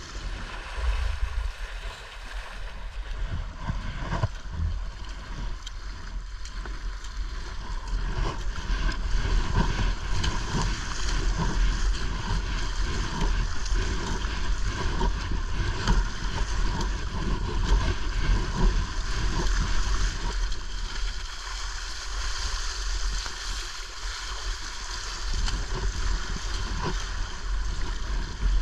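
Sea kayak's bow cutting through choppy sea: a steady rush and splash of water along the hull, with a low rumble of wind on the microphone.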